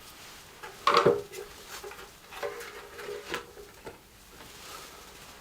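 Metal items being handled in a workshop: a sharp clank with a short ring about a second in, then a few lighter knocks.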